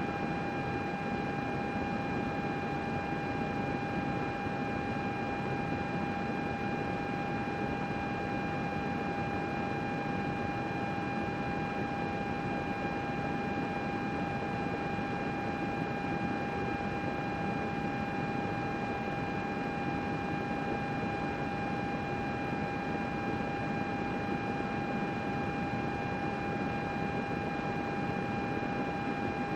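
Computer running with its cooling fans whirring: an even whoosh with a constant high whine on top, unchanging throughout.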